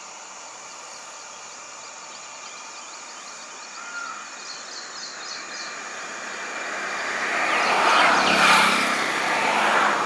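A vehicle passing, its noise growing from about six seconds in and loudest around eight seconds, then easing a little.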